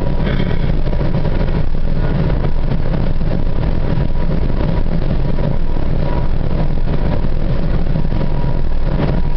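Steady drone of a vehicle's engine and road noise, heard from inside the cab while cruising at highway speed.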